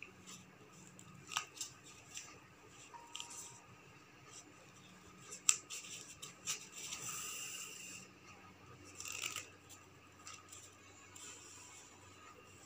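Handling sounds of silk thread wound on a cardboard card being worked with a needle: scattered sharp ticks and a few brief scratchy rubs.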